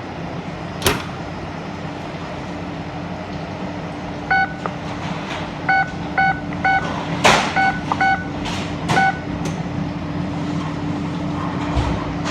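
Steady hum of commercial kitchen machinery with a low held tone, over which an appliance's electronic control panel gives about seven short beeps between about four and nine seconds in, as its buttons are pressed. A few sharp clicks and knocks, the loudest about seven seconds in.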